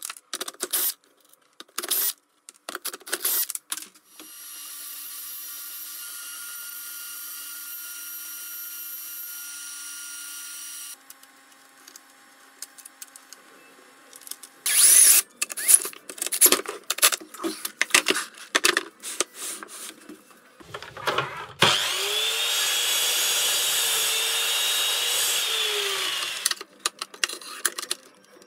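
Workshop power tools and handling of wooden and metal parts. Knocks come first, then a power tool runs steadily for about seven seconds. After a quiet spell come a burst of loud clattering knocks and a low thump, then a louder power tool run of about four seconds whose pitch wavers up and down, and a few more knocks at the end.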